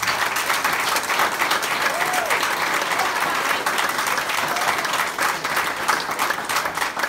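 An indoor audience applauding: many people clapping steadily.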